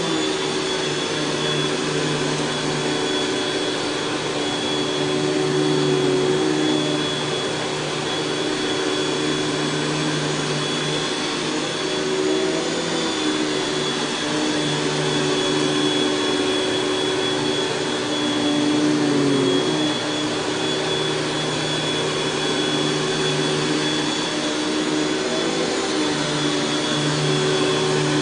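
Panasonic Jet-Flo MC-6210 upright vacuum cleaner running steadily, a motor hum with a high whine, its pitch sagging briefly once about two-thirds of the way through.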